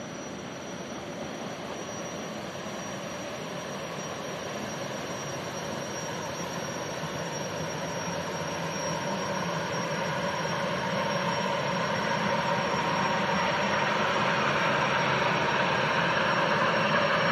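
Jetfoil ferry's gas turbines and waterjets running: a steady rushing noise with a thin high whine over it, growing steadily louder.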